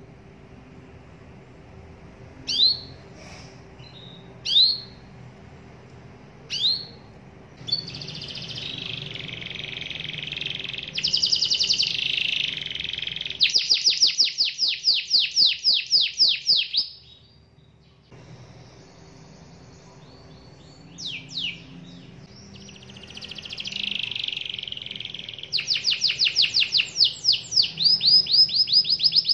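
Domestic canary calling and singing: a few single rising chirps, then a long warbling song ending in a fast run of repeated notes. After a short pause, more chirps lead into a second song with rapid rolled trills near the end.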